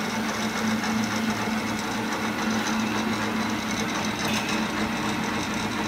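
Record Power BS400 bandsaw running at full speed with a steady motor hum, its newly fitted blade tracking into position on the wheels. There is a light click about four seconds in.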